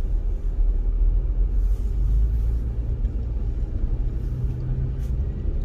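Low steady rumble of a four-wheel-drive vehicle's engine and tyres as it drives slowly on an icy road.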